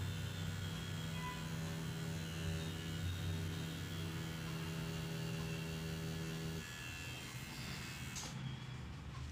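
Coil tattoo machine buzzing steadily as the needle runs over artificial practice skin; the buzz stops about six and a half seconds in.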